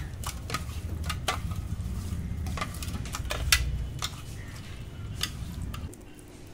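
Hand working pabda fish through a salt, turmeric and oil rub in a stainless steel bowl: irregular clicks and taps of fingers and fish against the steel, over a low rumble.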